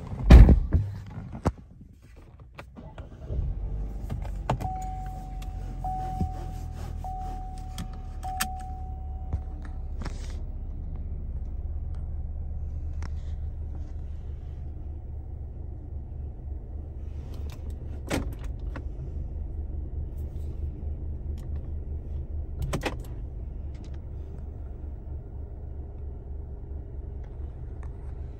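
The Camaro's 2.0-litre turbocharged four-cylinder, heard from the cabin: after a short loud burst at the start and a brief lull, the engine runs again from about three seconds in and settles into a steady idle. A tone chimes repeatedly for several seconds early on, and a few sharp clicks come later.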